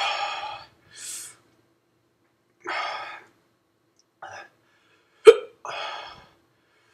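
A man hiccupping repeatedly, about six short vocal jerks in seven seconds, the sharpest and loudest about five seconds in. The hiccups are set off by the heat of a Trinidad Moruga Scorpion pepper.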